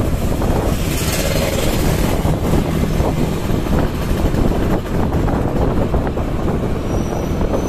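Vehicle engine and road noise while riding along a road, with wind rumbling on the microphone, steady throughout.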